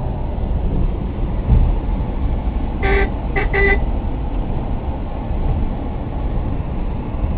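Steady rumble of road traffic, with a vehicle horn giving three short toots about three seconds in.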